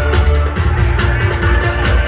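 Loud electronic dance music with a steady beat and heavy bass, played over a sound system.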